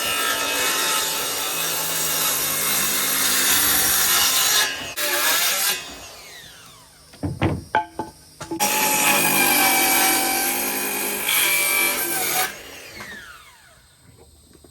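Handheld electric power tool working plywood in two runs of about five and four seconds, each ending with the motor winding down in a falling whine, with a few knocks in between.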